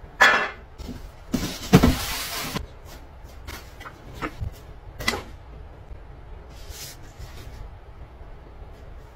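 Handling noise as a full-face motorcycle helmet is lifted out of a cardboard box and slid out of its cloth helmet bag: a sharp knock at the start, a louder rustling scrape about a second and a half in, then scattered light taps and rustles.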